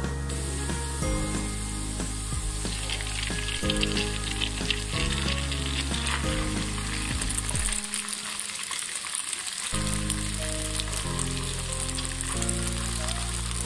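Boiled, drained flat noodles sizzling and frying as they go into a hot wok of stir-fried vegetables and chicken. The crackling swells about two and a half seconds in. Background music plays underneath.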